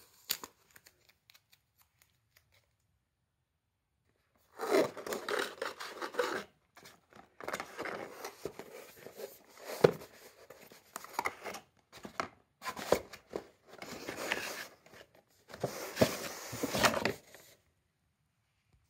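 Cardboard packaging being handled: the box's inner tray sliding out of its card sleeve, cardboard rubbing and scraping in several bursts after a few quiet seconds.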